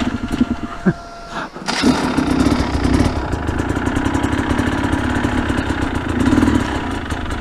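Dirt bike engine fades out about a second in and is started again just under two seconds in, then runs steadily at idle.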